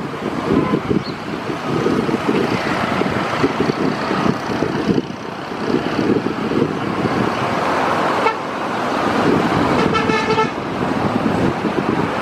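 Wind buffeting the microphone over steady outdoor traffic noise, with one short vehicle horn toot about ten seconds in.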